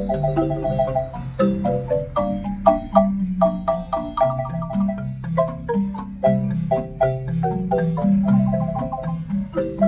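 Wooden marimba with hanging wooden resonators, played by two players with mallets: a melody in fast repeated-note rolls on the upper keys over a stepping bass line on the low keys.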